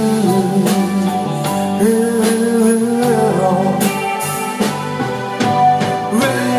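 Live band playing a slow pop ballad, with guitar, bass and drums under a sustained, bending melody line between sung phrases.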